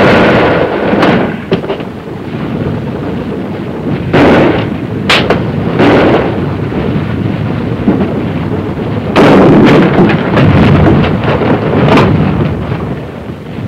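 Gunfire inside a building: several loud shots or blasts at irregular intervals, each followed by a long rumbling echo.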